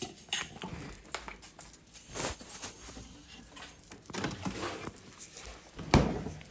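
Handling noise: scattered light clicks, taps and rustles as objects are moved about, with a louder knock about six seconds in.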